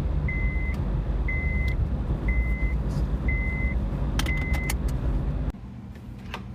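Car cabin with the engine running and a warning chime beeping steadily, about once a second. Keys jangle about four seconds in, then the chime stops and the engine rumble cuts off abruptly.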